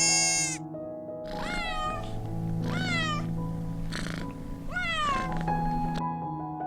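A cat meowing three times, each meow falling in pitch, over soft background music.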